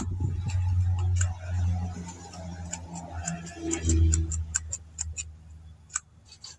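A low electrical hum that swells and fades, with a scatter of light clicks and ticks over it.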